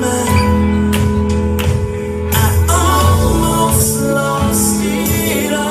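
Gospel worship music: a band playing held bass and keyboard chords under steady drum and tambourine hits, with singing.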